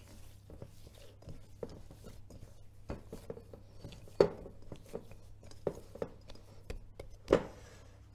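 Shortcrust dough being kneaded by hand in a glass bowl: soft, irregular thuds and knocks as the dough is pressed and pushed against the glass, with two louder knocks about four and seven seconds in.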